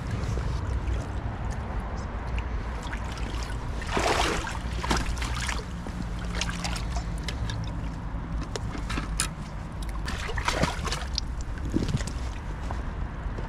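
Water sloshing and splashing beside an inflatable boat, with louder splashes about four and ten seconds in, over a steady low rumble. Scattered clicks and knocks come from gear being handled.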